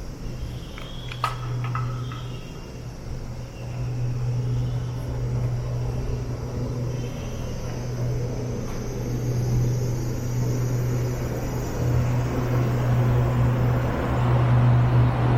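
City street traffic: a steady low engine hum with road noise from passing cars, building up and getting louder toward the end.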